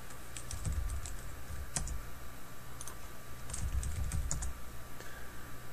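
Typing on a computer keyboard: two short runs of keystrokes, one near the start and one around four seconds in, with a single louder click between them.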